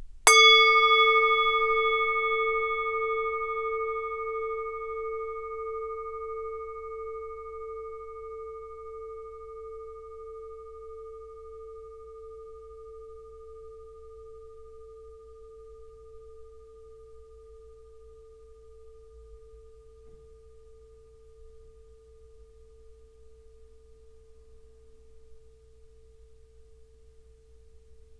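Tibetan singing bowl struck once, ringing in a long, slowly fading tone with a gentle pulsing wobble. Its higher overtones die away within the first few seconds while the low note lingers.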